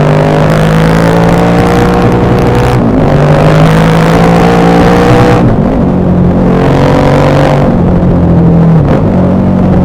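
KTM 1190 Adventure R's LC8 V-twin engine running under throttle. Its pitch rises slowly and drops back about three times.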